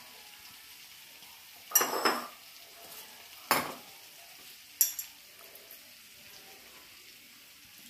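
Metal hand-press lemon squeezer clattering three times as it is worked over a steel bowl: a longer clatter about two seconds in, then two shorter ones. A faint steady hiss underneath.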